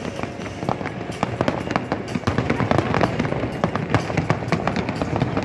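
Fireworks display going off: a dense, irregular stream of bangs and crackles, many per second, with no pause.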